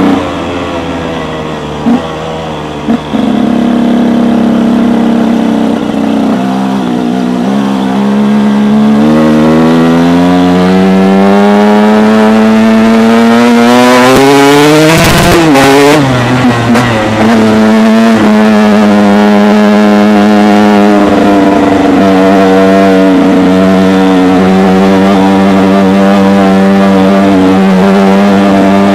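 KTM EXC 125 two-stroke single-cylinder engine pulling the bike along, heard from the rider's seat. It holds fairly steady at first, then revs up in one long rising climb to a peak about halfway through, drops back, and runs steadily at a lower pitch to the end.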